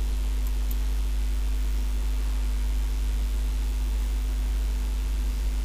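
Steady electrical hum with a strong low drone and a constant hiss, unchanging throughout; two faint clicks about half a second in.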